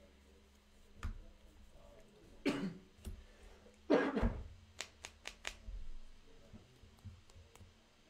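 A person coughing twice, the second cough louder, followed by a few quick light clicks.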